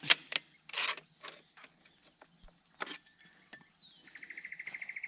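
A few sharp clicks and a rustle of handling as staples are taken out of a Milwaukee cordless fencing stapler's magazine. About four seconds in, an insect starts a rapid, evenly pulsing high trill.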